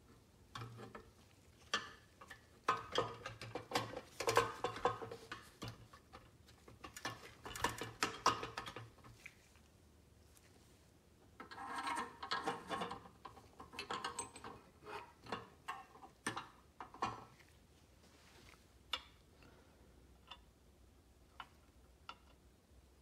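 Light clicks, taps and rattles of powder-coated steel toy locomotive parts being handled and fitted together with gloved hands, in two busy stretches and then a few scattered clicks near the end.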